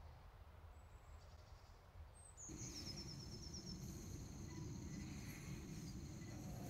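Faint outdoor ambience: near silence at first, then a light steady background noise comes in about two and a half seconds in, with a quick run of high chirps soon after.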